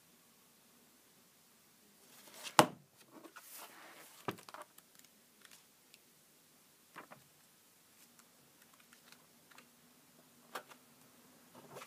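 Glossy programme booklets being handled and their pages turned: paper rustling and a few sharp clicks and snaps, the loudest about two and a half seconds in, after a couple of quiet seconds.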